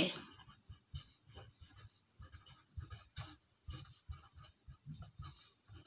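Pen writing on paper: soft, irregular scratches of short pen strokes as words are written by hand.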